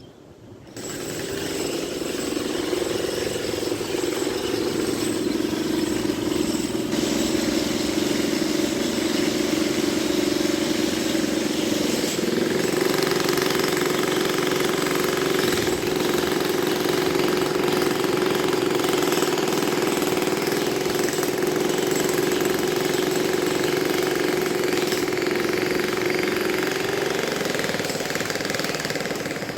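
Construction machinery running steadily with a loud mechanical drone and rattle. It starts about a second in and cuts off near the end.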